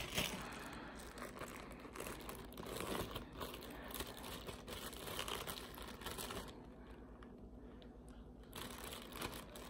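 Clear plastic zip-top bag crinkling faintly as it is held open and handled while peppers are pulled out of it, easing off briefly about two-thirds of the way in.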